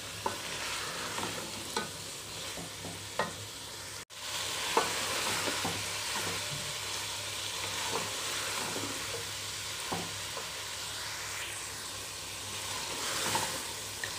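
Chicken and chopped green capsicum sizzling as they are stir-fried in a metal pot, with a steady frying hiss and scattered scrapes and knocks of a wooden spatula against the pot. The sound cuts out for a split second about four seconds in.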